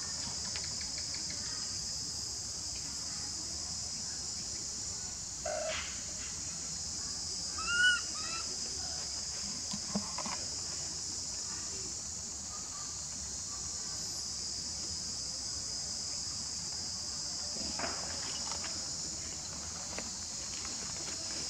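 Steady high-pitched drone of insects, with one short rising-and-falling call about eight seconds in.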